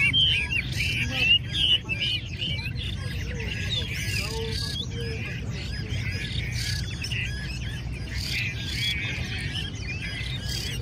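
Several caged Chinese hwamei singing together: a dense run of quick, rising and falling whistled notes, busiest in the first couple of seconds and then going on more thinly, over a low background hum.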